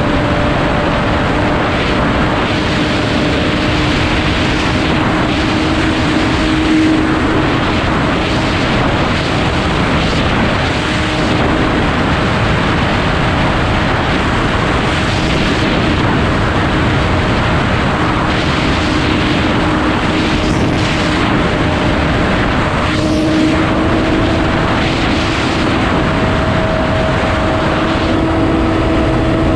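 Sport motorcycle engine running at steady high revs, heard from the bike over heavy wind rush at road speed; the engine note holds one pitch and rises slightly near the end.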